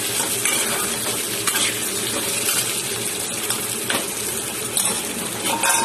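Potato cubes sizzling in hot mustard oil in a kadai, with a metal spatula scraping and clinking against the pan as they are turned. A ringing metallic clank comes near the end.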